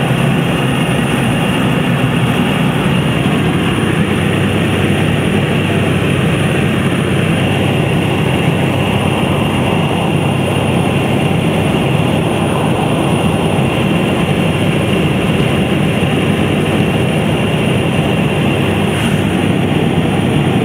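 Steady engine and propeller noise of a de Havilland Canada Otter in flight, heard from inside the cabin, with a thin steady high tone on top.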